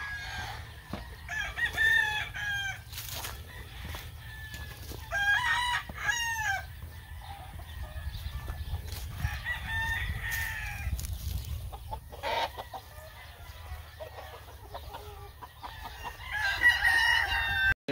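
Gamefowl roosters in their pens crowing, one crow after another in about four separate bouts spaced several seconds apart.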